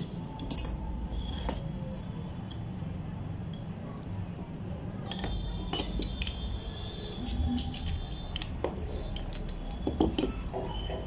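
Scattered sharp metallic clinks and taps as a steel pipe wrench and an adjustable wrench are handled and set against a three-quarter-inch brass ball valve, over a steady low hum.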